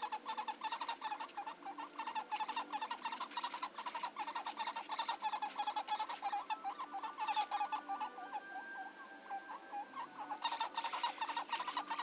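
Baby woodpecker calling: a rapid, continuous chatter of short calls, many a second. The calls thin out briefly about two-thirds of the way through, then pick up again.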